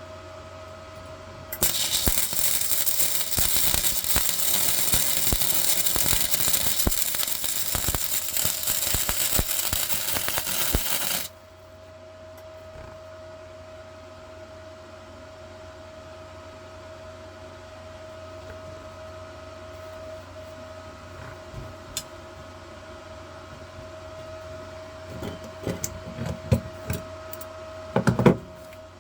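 Welding a small steel tab onto a motorcycle-style exhaust muffler. A continuous crackling arc starts about two seconds in and stops sharply after about nine seconds. A steady hum follows, with a few clicks and knocks near the end.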